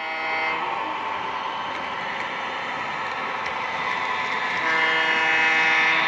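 Model diesel locomotive's sound-system horn blowing as the train approaches the crossing: a chord that breaks off about half a second in, then a louder, longer blast from near the end. A steady running noise between the blasts grows louder as the locomotive nears.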